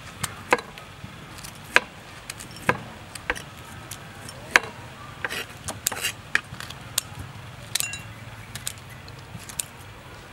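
Kitchen scissors snipping dried red chilies over a ceramic bowl: a run of sharp, irregular snips, roughly one or two a second.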